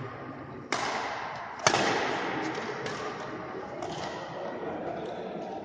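Badminton rackets striking the shuttlecock during a rally: two sharp cracks about a second apart, the second the loudest, then lighter hits, each ringing on in a large echoing hall.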